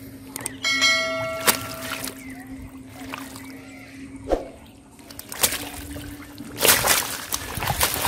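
Hands splashing and squelching in shallow mud and water while grappling a large fish, with the loudest splashing near the end. A steady low hum runs underneath, and a brief bell-like ringing sounds about a second in.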